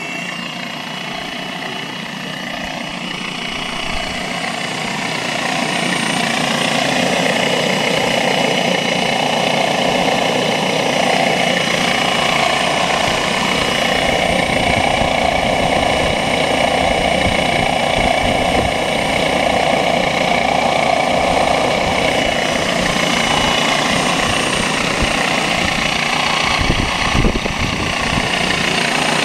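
Electric T-Rex 500 RC helicopter with a four-blade main rotor, driven by a Scorpion brushless motor on a 6S battery, spooling up on the ground. The motor's high whine and the rotor's whirr grow louder over the first several seconds, then hold steady. A brief knock comes near the end.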